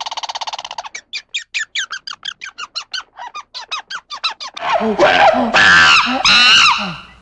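Rapid high squeaks or chirps from an animal, about six a second, after a short buzzing trill. About four and a half seconds in, louder wavering cries take over.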